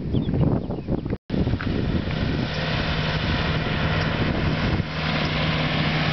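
Wind rumbling on the microphone while cycling, cut off abruptly about a second in; then the engine of an approaching road tourist train (land train) running with a steady low hum and road noise.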